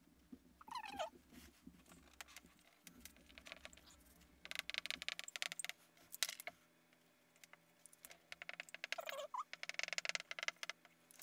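Dry-erase markers squeaking and scratching on a whiteboard as a diagram and words are drawn: a short falling squeak about a second in, then bursts of quick scratchy strokes around four to five seconds in and again near the end, with another squeak just before the last burst.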